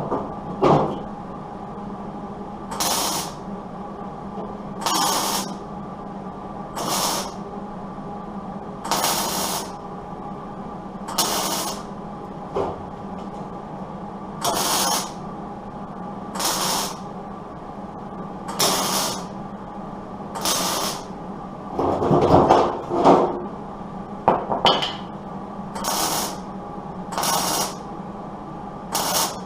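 MIG welder laying short tack welds on truck-door sheet metal: a crackling hiss lasting half a second to a second, repeated about every two seconds over a steady low hum. Around two-thirds of the way through comes a longer, louder run of welding.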